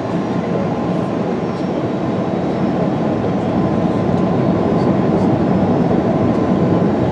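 Steady cabin noise of an Airbus A330-200 descending on approach to land: a dense, even rumble of engines and airflow, with a faint steady hum, gradually growing louder.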